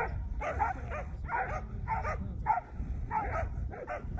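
Greyhounds yelping and whining in short, high cries, about two a second.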